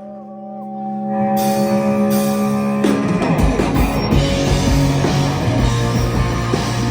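Live rock band starting a song: a held, swelling chord for about three seconds, then the drums and the full band come in.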